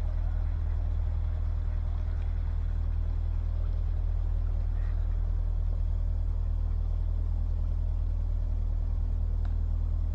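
Narrowboat's diesel engine running steadily at cruising speed, a constant low throb with fine even pulsing.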